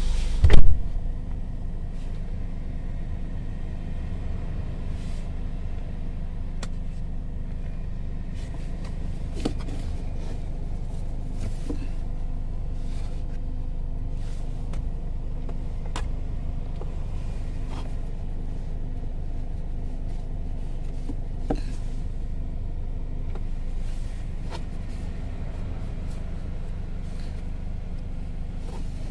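Car engine idling, heard inside the cabin as a steady low rumble, with one loud thump about half a second in and a few faint clicks.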